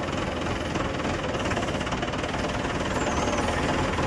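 Steady mechanical running noise from a motor or engine, unbroken throughout.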